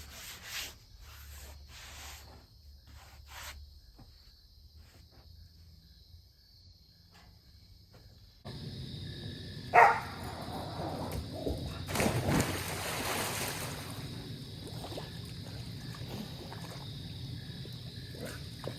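Insects trilling steadily outdoors. Before this, about the first eight seconds hold only quiet scattered clicks and knocks. Near ten seconds there is one short sharp animal call, and around twelve seconds a brief noisy rustle.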